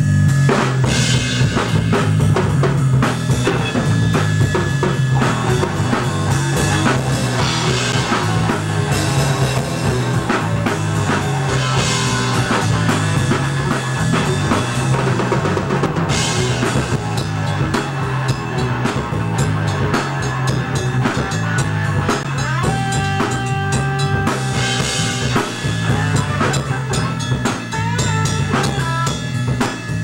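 Live band jamming: a full drum kit with kick, snare and cymbal crashes every few seconds, under guitar and a steady low bass line.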